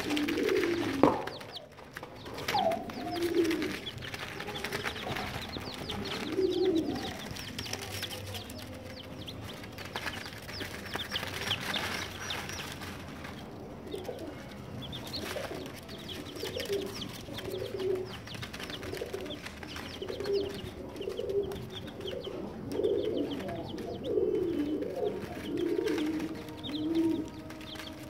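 Young chicks calling: many short high peeps over repeated softer, lower calls. One sharp knock about a second in.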